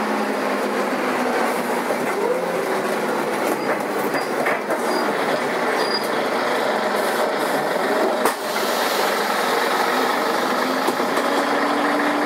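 Karosa B941 articulated city bus running, a steady din of engine and road noise with a faint whine that rises and falls in pitch. A single knock about eight seconds in.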